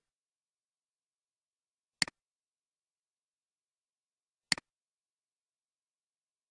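Two computer mouse clicks about two and a half seconds apart, each a quick double tick of the button pressing and releasing, with dead silence between.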